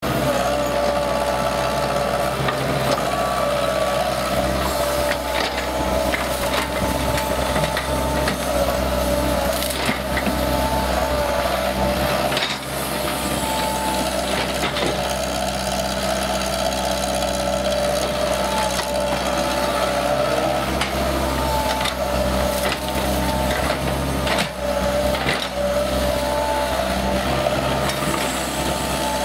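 Mini excavator working: its engine runs steadily with a constant whine, while the bucket scrapes and knocks through mud and stones, giving irregular clunks and crunches.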